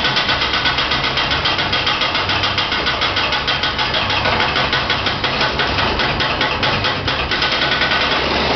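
Sheet-metal power hammer running, its dies striking a metal panel in a rapid, steady hammering as the panel is moved through it.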